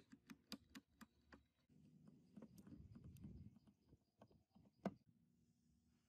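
Faint clicks and taps of small parts and tools being handled, about eight in quick succession, then a few seconds of rubbing or scraping and one sharper click near the end.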